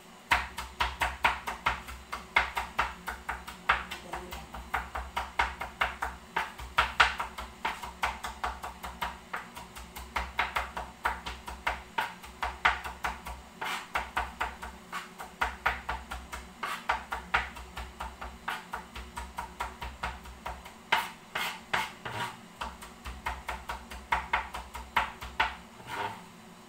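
A rapid, uneven run of sharp clicks and taps, several a second, over a low hum that comes and goes; it starts abruptly and stops just before the end.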